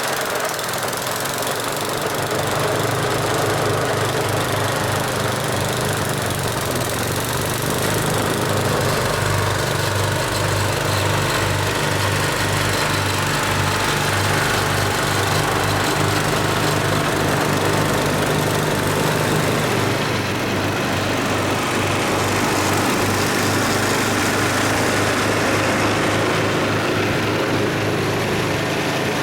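Snowblower engine running steadily under load, its pulsing drone under a steady rushing noise.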